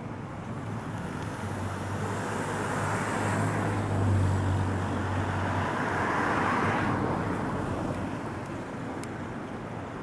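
A road vehicle passing by: engine hum and tyre noise build up, peak about four seconds in, and fall away about seven seconds in.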